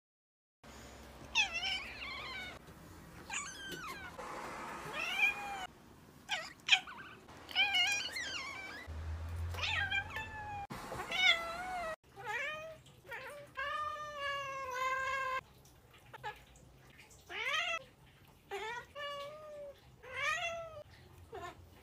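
A domestic cat meowing over and over, mostly short meows, with a few long drawn-out meows about two thirds of the way through.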